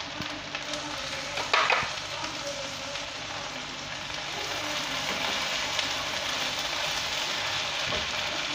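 Onions, peppers and freshly added tomato pieces sizzling steadily in a frying pan, with a brief clatter about a second and a half in. The sizzle grows a little louder after about four seconds.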